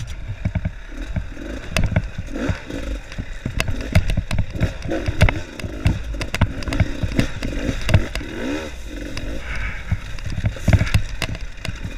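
Dirt bike engine running at low revs on a rocky downhill track, under constant knocking and clatter from the wheels and suspension over loose stones. The engine revs up and back down briefly about three-quarters through.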